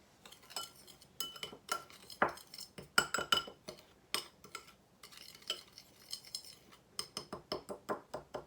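A utensil stirring a dry spice mix in a bowl, tapping and clinking against the bowl with short ringing clinks; the taps come faster and more evenly, about four a second, near the end.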